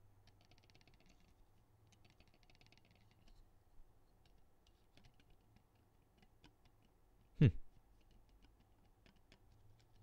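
Light plastic-and-metal clicks and small rattles from a mechanical num pad (KBDPad MKII kit) being handled, its plate and key switches ticking in the case, with two short runs of rapid fine ticking in the first three seconds. A brief grunt-like vocal sound stands out about seven seconds in.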